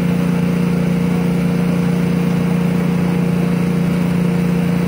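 An engine running steadily with a constant low hum and no change in speed, typical of the power pack that drives hydraulic re-railing jacks.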